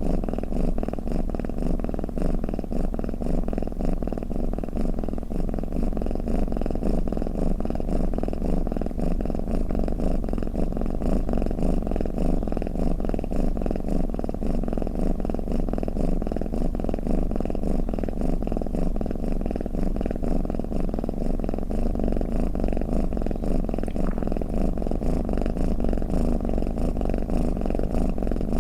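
Domestic cat purring steadily, a low rumble made of fast, even pulses.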